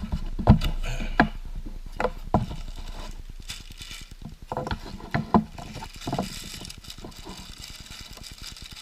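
Irregular clicks and knocks of hands handling a fishing reel and its packaging as it is unboxed, a dozen or so, spaced unevenly and fading a little towards the end.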